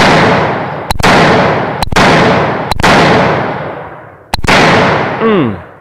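AR-15 rifle fired five times at roughly one-second intervals, each shot followed by a long echoing tail. Someone whoops near the end.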